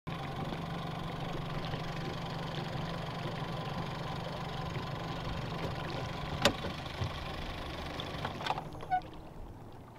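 Boat motor idling with a steady low hum, a sharp click about six and a half seconds in and a few lighter knocks after it; the hum fades in the last second.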